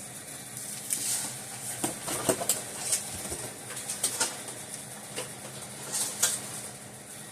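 Rummaging through a pile of power cords and plastic AC adapters: scattered clicks, clatters and rustles, with a faint steady hum underneath.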